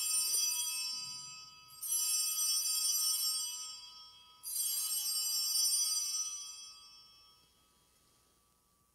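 Altar bells (sanctus bells) rung three times, about two seconds apart, each ring a burst of jingling that fades away. They mark the elevation of the consecrated host.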